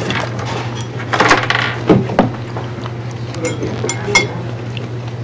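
Dishes and cutlery clinking at a dining table: scattered light clicks, then a few sharp ringing clinks about three and a half to four seconds in, over a steady low hum.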